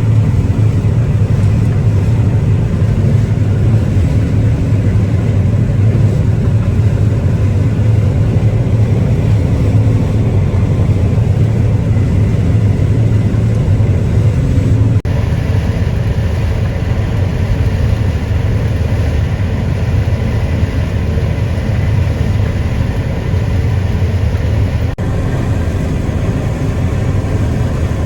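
Heavy farm harvest machinery running steadily, a loud low engine drone with machinery noise over it. The sound changes abruptly twice, about halfway through and again near the end.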